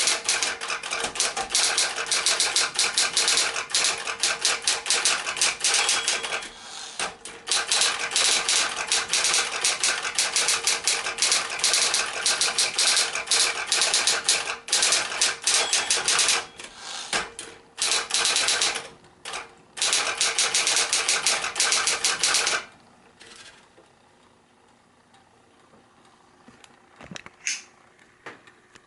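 Smith-Corona Electra 120 electric typewriter typing fast, a dense stream of key strikes with a few short pauses, stopping about 22 seconds in. After that only a few faint clicks.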